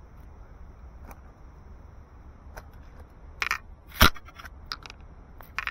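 A wet landing net with a catch in it being brought down onto a stone bank: a brief splash of water from the mesh, then a single sharp knock just after four seconds in, with a few small clicks and taps around it.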